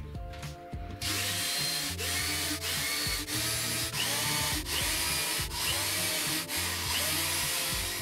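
Cordless drill boring into wood, running in a series of short runs with brief pauses between them, starting about a second in.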